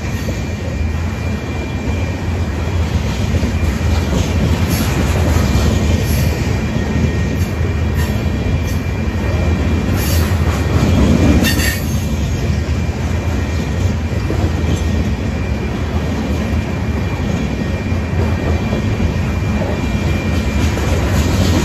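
Freight train of open-top hopper cars rolling past: a steady rumble of steel wheels on rail with a faint, thin wheel squeal throughout. A brief sharper screech comes about halfway through.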